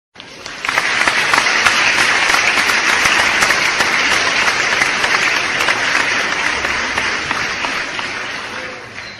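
Crowd applause sound effect: many hands clapping together, swelling in about a second and slowly dying away near the end.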